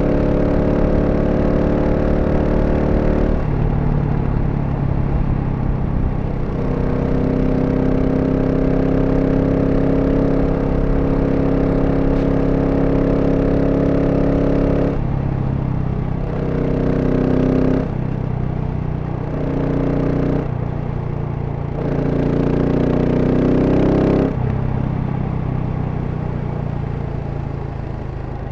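A GasGas SM 700 supermoto's single-cylinder engine on the stock exhaust, under way. It holds steady speed for long stretches, with the throttle rolled off about 3.5 s in and again about 15 s in, then several short on-and-off throttle bursts. It settles to a lower, steady note near the end.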